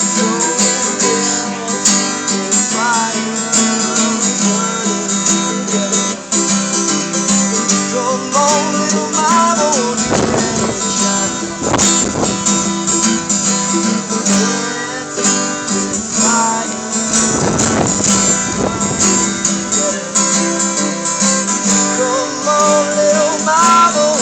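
Small acoustic band playing an instrumental passage: strummed acoustic guitar chords with a melody line that slides up and down over them.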